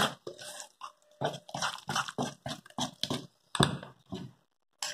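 Thick pumpkin fritter batter squelching as it is kneaded and mixed by hand in a metal bowl: a quick run of short wet squishes, about four or five a second, thinning out after about three seconds.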